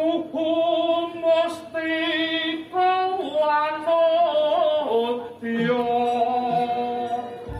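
A solo voice singing long held notes with a strong wavering vibrato, stepping between a few pitches and dropping lower about five and a half seconds in. Faint music sits underneath.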